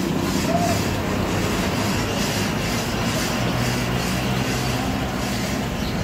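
Steady background noise: a low hum and rumble under an even hiss, with no clear single event.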